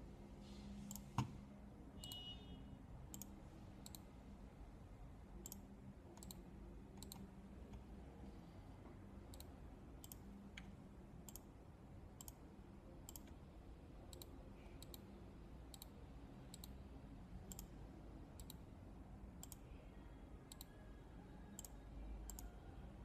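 Faint computer mouse clicks at an uneven pace of about one or two a second, with one louder click about a second in, over a low steady hum.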